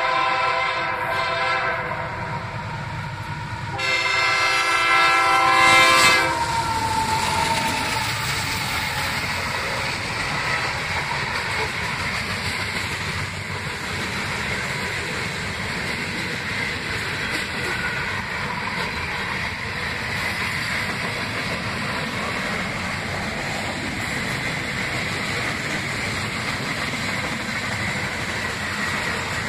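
Freight locomotive horn sounding at a grade crossing, easing briefly about three seconds in, then a louder final blast that drops in pitch as it ends about six seconds in. After that comes the steady rumble and clatter of freight cars (covered hoppers and tank cars) rolling by over the crossing.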